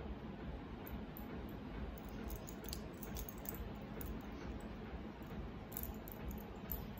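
Quiet room tone with a steady low hum, broken by a few faint, light high ticks and clinks, a cluster about two to three and a half seconds in and another near the end.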